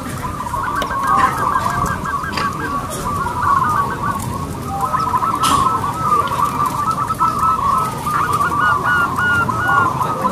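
Zebra dove (perkutut) cooing: a steady run of rapid, rolling notes, packed almost without a break. A few faint higher chirps come in near the end.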